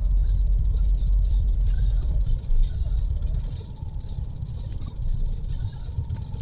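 Car engine and road rumble heard inside the cabin, a steady low drone that eases off about three and a half seconds in as the car slows in queued traffic.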